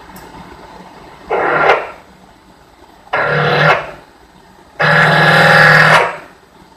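Milling machine drilling into a metal block in three separate bursts, each a steady pitched buzz with a harsh upper edge. The bursts get longer: the first two are short, and the third, about five seconds in, lasts over a second.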